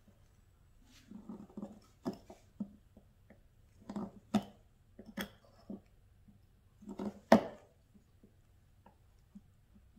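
Narrow hand chisel paring and scraping at the edge of a drilled hole in a plywood part. The strokes come as short, irregular scrapes and clicks, with the sharpest one about three-quarters of the way through.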